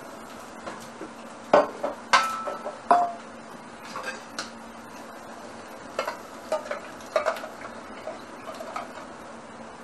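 Stainless steel pots, pans and kitchen utensils clanking and clinking as they are moved and set down. There is a cluster of sharp knocks about one and a half to three seconds in, and another group about six to seven and a half seconds in, over a faint steady hum.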